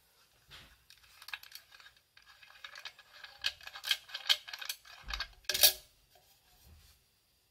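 Stainless steel hip flask's hinged screw cap being unscrewed: a run of small metallic clicks and scrapes from the threads. It ends with the loudest click, a little before six seconds in, as the cap comes free and swings open.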